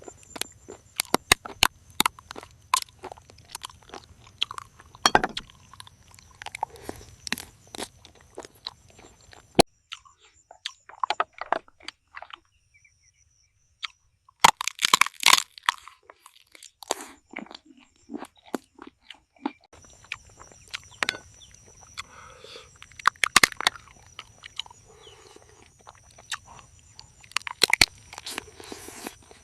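A person biting and chewing crunchy food close to the microphone: a long run of sharp, irregular crunches, with a pause of a couple of seconds around the middle.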